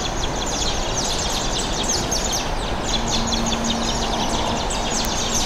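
Birds chirping steadily, many quick high falling chirps in a row, over a steady outdoor background noise.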